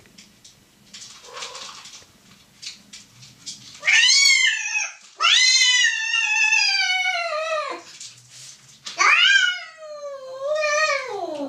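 Domestic cat caterwauling during mating. After a few seconds of faint rustling come three loud, drawn-out yowls, each sliding down in pitch, the last dropping low as it ends.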